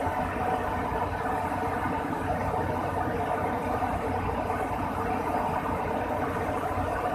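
Airbus A300-600 turbine running steadily on the ground, an even drone with no change in level.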